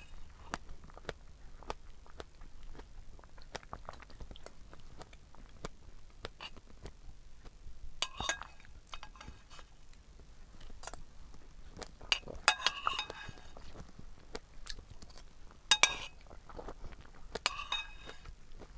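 Close-up wet chewing and mouth sounds of someone eating strawberries, made of many small clicks, with a few sharper clinks and clicks about 8, 12, 16 and 17 seconds in.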